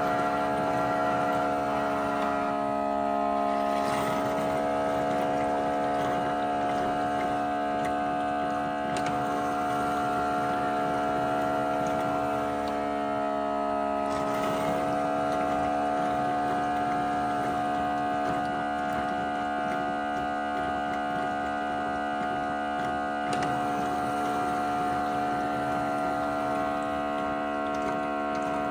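The Shark PowerDetect NeverTouch Pro's self-cleaning base station runs a steady motor-and-pump hum with water sounds as it washes the mop pad. The pitch of the hum shifts slightly about three seconds in and again around fourteen seconds.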